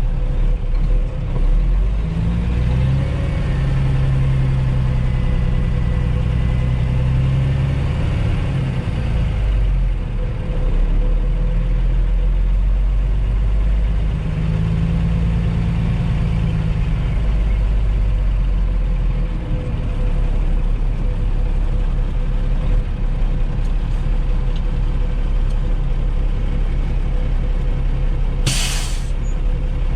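Ford L9000 dump truck's diesel engine running steadily, rising and falling in pitch a couple of times. A short burst of air-brake hiss comes near the end.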